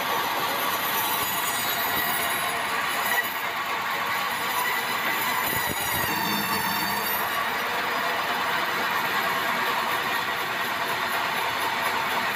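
Sawmill saw blade cutting through a large, dry bengkirai (yellow balau) hardwood log: a steady mechanical run with a high-pitched whine. The whine dips briefly in pitch about six seconds in, and there is a single knock about three seconds in.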